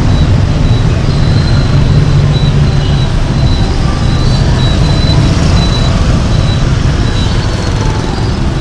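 Steady, loud rumble of dense city traffic, mostly motor scooters with some cars, their engines and tyres blending together.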